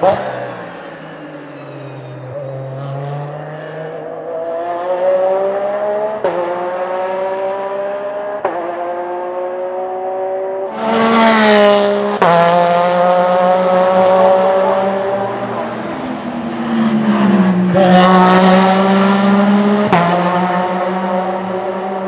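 Porsche 911 RSR (991) race car's mid-mounted 4-litre flat-six accelerating hard through the gears. The pitch climbs steadily, then drops sharply at each upshift, about five times, and the engine is loudest around halfway through as the car passes close.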